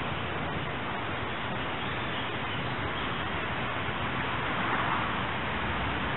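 Steady outdoor ambience: an even hiss with no train passing, swelling slightly about five seconds in.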